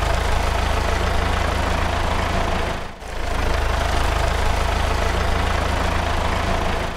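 Added sound effect of a heavy vehicle engine running at idle, a steady deep rumble that dips briefly about three seconds in.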